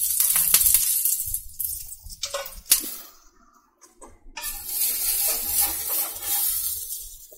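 Sesame oil sizzling on a hot griddle around frying rotis, a steady hiss that drops out for about a second near the middle and then resumes.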